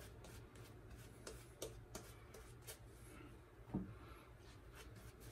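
Faint scratchy rubbing with scattered light clicks: a boar-bristle shaving brush working lather over a bearded face.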